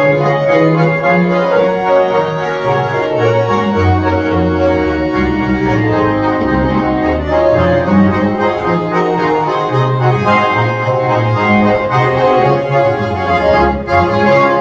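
Three Schwyzerörgeli (Swiss diatonic button accordions) and a double bass playing a Ländler tune: reedy accordion chords and melody over bass notes that change in a steady rhythm.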